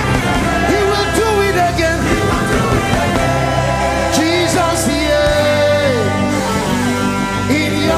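Live worship music: a band with guitar and steady bass, with singing voices gliding over it.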